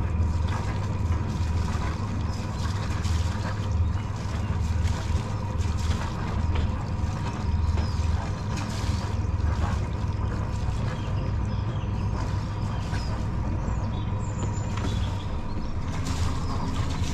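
Sailing yacht's inboard engine running steadily while motoring.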